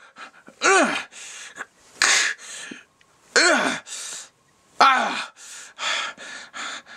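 A man's voice making effortful wordless yells, three strong cries that each rise and fall in pitch, with breathy huffs and gasps between them, as if swinging at something.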